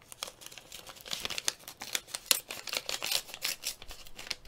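Paper envelope being opened along its side: a dense run of short, crisp paper crackles, busiest from about a second in until near the end.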